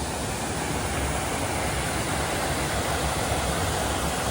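Rushing water of a mountain stream or river, a steady even rush with no breaks.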